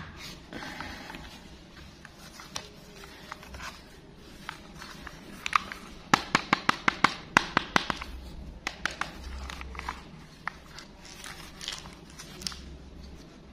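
Hard plastic toy airplane handled and turned over in knitted gloves: soft rubbing and scraping, with a quick run of about a dozen sharp plastic clicks about six seconds in.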